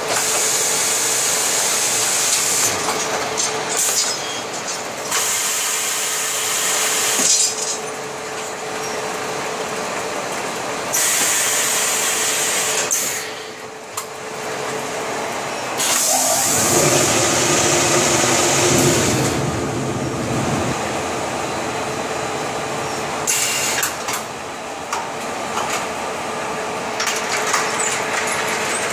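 Fabric-roll packing machine running as it sleeves a cloth roll in plastic film: a steady hum under repeated hissing bursts, each a second or a few seconds long, with a heavier rumble for a few seconds about two-thirds through.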